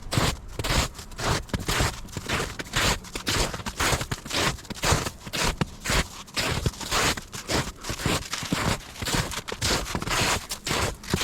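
Footsteps of a person walking at a steady pace, about two to three scraping, crunching steps a second on the ground.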